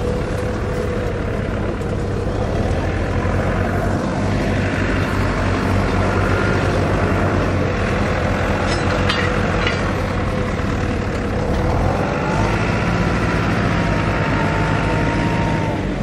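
A steady engine drone from nearby machinery, its pitch rising about three-quarters of the way through and then holding. A few sharp clicks come about halfway.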